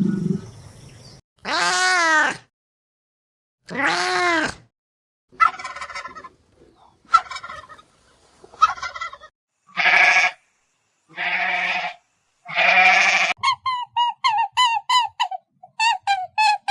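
A string of different animal calls, one clip after another with short silences between. First come two arched cries, then a spell of rapid clicking notes, then three steady pitched calls, and near the end a quick run of short falling notes, about four a second.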